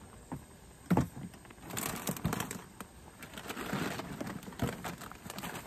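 Things being packed into a plastic storage tote: a sharp knock about a second in, then rustling and rummaging with a few lighter knocks.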